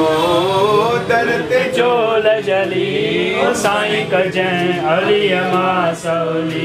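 Devotional chant sung by men, with a steady musical drone beneath; the sung notes bend and are held without a break.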